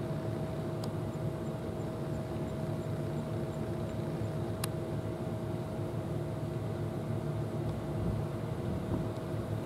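Steady low mechanical hum with a constant tone running through it, unchanging throughout. A single sharp click sounds about halfway through.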